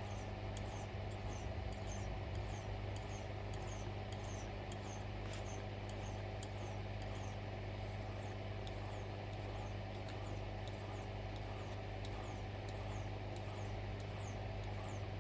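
Knife blade being stroked along a wet whetstone, short scraping strokes about two a second, over a steady low hum.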